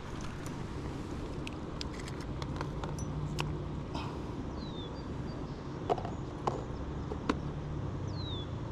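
Outdoor ambience: a steady low rumble with scattered sharp clicks and knocks, three louder ones in the second half, and two short falling chirps.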